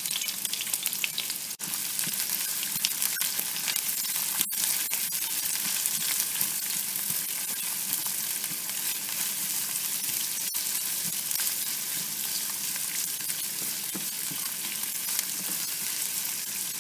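Sliced onions frying in hot oil in a nonstick pan, a steady sizzle with fine crackling, stirred with a spatula now and then as they are cooked toward brown.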